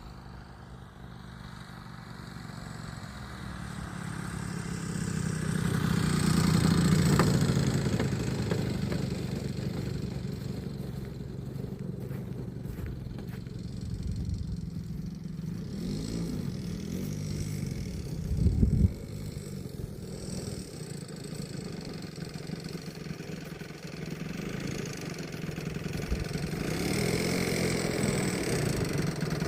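Engine and propeller of a large-scale Carf P-51 Mustang model warbird running in flight, swelling to its loudest about seven seconds in as it passes and changing pitch as it passes again. A short loud low rumble comes about two-thirds of the way through, and the engine grows louder again near the end.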